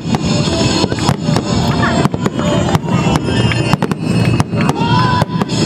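Aerial fireworks bursting, many bangs in rapid succession, with music playing underneath.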